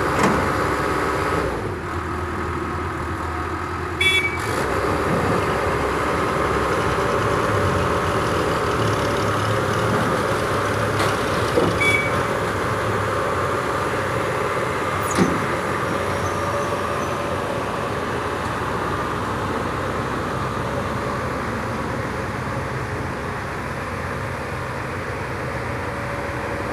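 Komatsu PC70 excavator's diesel engine running steadily under working load, with a few short sharp knocks about 4, 12 and 15 seconds in.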